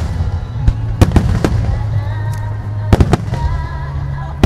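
Starmine aerial firework shells bursting in sharp bangs, two quick ones about a second in, one shortly after, a pair about three seconds in and another at the end, over music playing steadily throughout.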